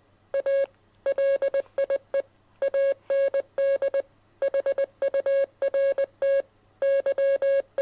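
Morse code played as a beeping tone: one steady mid-pitched beep keyed on and off in short dots and longer dashes, grouped into letters with brief silences between the groups.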